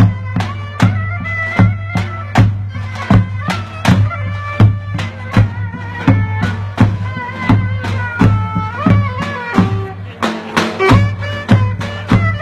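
Live folk dance music: a davul bass drum beating a steady dance rhythm under a loud, ornamented wind-instrument melody.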